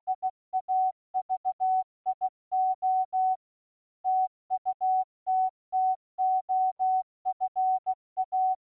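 Morse-code-style beeping: a single steady tone keyed on and off in quick short and long pulses, with dead silence between them and a pause of about a second in the middle.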